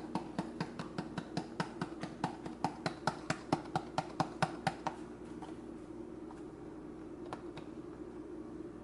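Paprika being shaken out of a spice jar, its contents clicking against the container about five times a second for some five seconds, then a few scattered shakes, over a steady low hum.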